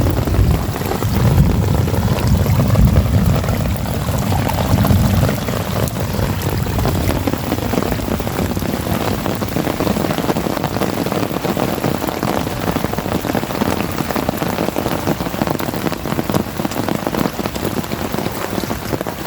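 Heavy rain falling steadily, a dense patter of drops close to the microphone on the umbrella held over the phone. A low rumble of thunder runs through the first five seconds and fades.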